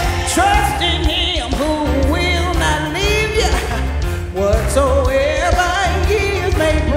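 A woman singing a gospel song into a microphone, with held notes that waver, accompanied by electric keyboard and drum kit.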